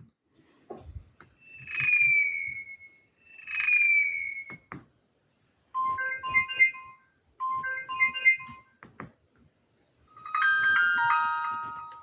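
Alcatel Onetouch 2010X mobile phone playing a series of short electronic alert tones: two falling chirps, then two brief multi-note jingles, then a longer chime near the end, with soft clicks between them.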